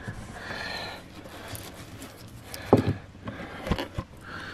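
Handling noise as a cable is worked through a boat cabin's headliner panel: soft rustling, then three light knocks in the second half.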